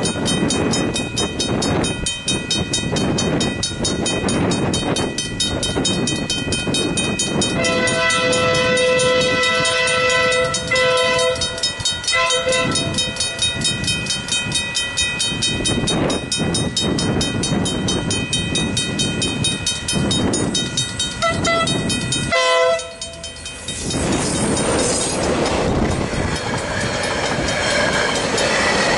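Griswold mechanical crossing bells ringing with fast, even strokes while a freight train's locomotive horn sounds, one long blast about eight seconds in, then shorter ones, and another near twenty seconds. After a brief drop about 23 s in, the train passes over the crossing, its wagons rumbling and clattering on the rails.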